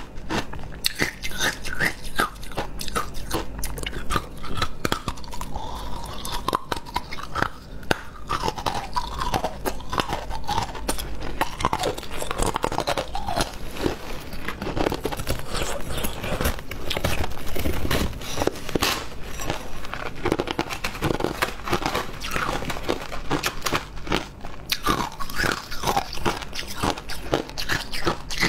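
Close-up crunching and chewing of shaved ice: many small, irregular crunches in quick succession.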